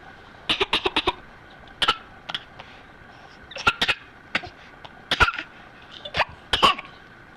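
A small child's cough-laughs: short, sharp coughing bursts, some in quick runs of three or four, repeated through with brief pauses between.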